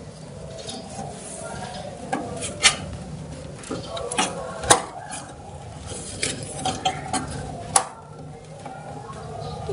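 RAM module being pushed into its slot on a desktop PC motherboard, a string of sharp plastic clicks and taps as it seats and the slot latches snap, the loudest about three, five and eight seconds in.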